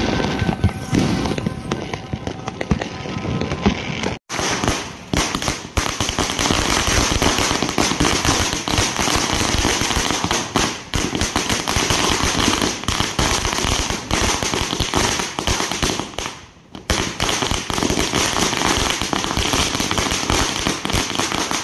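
A long string of firecrackers going off, a fast, unbroken rattle of bangs that dips briefly about three quarters of the way through. Over the first four seconds, before it, there are scattered fireworks with faint music.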